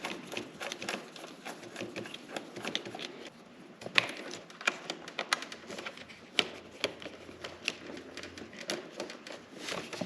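Irregular light clicks and taps of hand work on motorcycle parts, small tools and plastic pieces being handled, with a sharper click about four seconds in.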